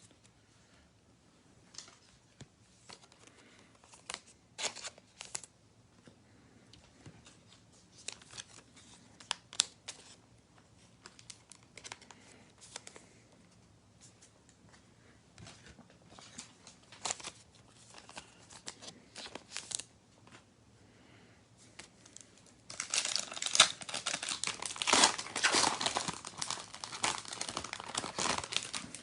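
Scattered light clicks and rustles of trading cards being handled, then, about 23 seconds in, a louder stretch of dense crinkling and tearing as a card pack wrapper is ripped open.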